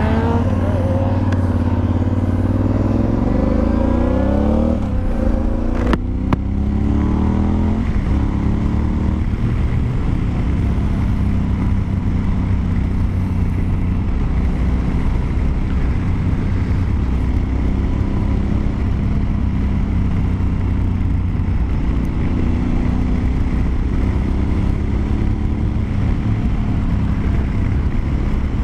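Honda Varadero XL1000's 996 cc V-twin engine on the move, its revs rising and falling through the first several seconds with a sharp click about six seconds in, then running steadily under a constant rush of wind and road noise.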